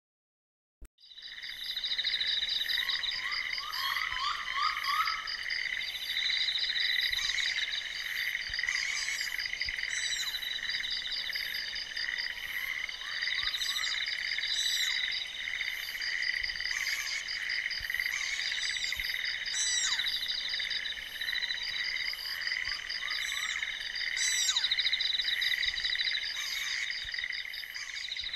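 Night chorus of frogs and insects: dense, steady pulsing trills, with short higher chirps recurring every few seconds. It fades in about a second in.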